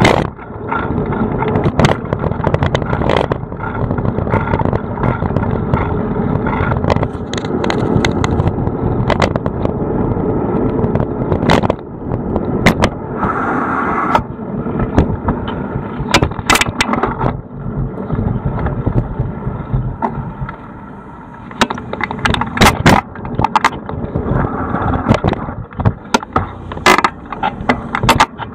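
Bicycle rolling over rough city pavement, heard through a camera mounted on the bike: a continuous rumble of tyres and road with many sharp knocks and rattles from the bumps. There is a brief high squeal about halfway through.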